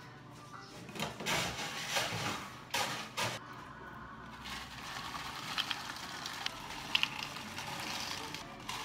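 Ice cubes rattling in a plastic scoop and being tipped into plastic cups: a run of clattering in the first few seconds, then a few sharp clinks of ice dropping into the cups.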